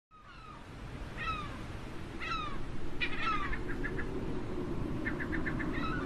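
Seagulls calling: several falling cries about a second apart, then quick runs of short clipped notes, over a steady low rumble of ambience.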